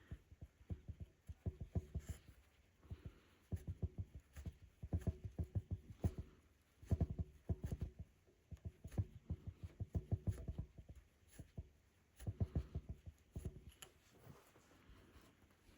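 Rug hook punching through the backing cloth and pulling up wool loops: runs of quick soft low thumps, several strokes at a time with short pauses between runs.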